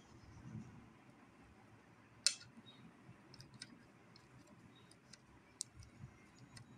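Faint, sparse clicks as a handmade tin blade trims the edges of a rice-dough flower pitha on newspaper over a plate. One sharper click comes about two seconds in.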